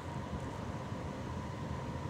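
Steady background noise between words: a low rumble and hiss with a faint steady tone.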